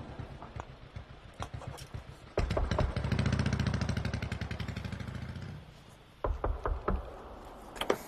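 An engine running with a rapid, even pulsing beat that comes in suddenly about two and a half seconds in and fades away about three seconds later, with scattered clicks and knocks around it.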